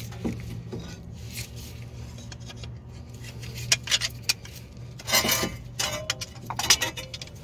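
Metal clinks and scrapes of large channel-lock pliers against a front brake caliper and old brake pad, taken off and set back on while squeezing the caliper pistons back into their bores. The clinks are scattered, thickest in the second half.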